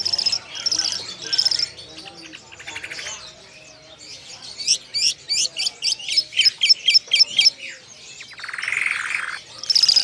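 Caged songbirds chirping and calling. From about the middle, a rapid run of sharp down-slurred notes, roughly three a second, goes on for some three seconds, followed by a short buzzy call.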